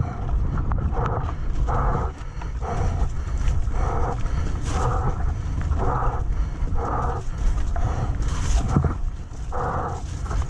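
Mountain bike descending a wet trail, heard from the rider's camera: a steady heavy rumble of wind and trail noise, with short pitched honks repeating about once or twice a second.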